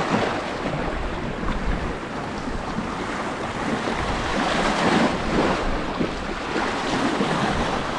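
Small sea waves washing and splashing over low rocks at the water's edge, with wind buffeting the microphone.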